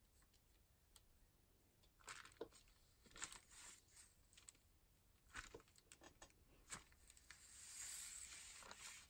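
Faint rustling and light handling noises of thin rice paper and a clear acrylic stamp, a few brief rustles, then a longer soft rustle near the end as the paper is smoothed.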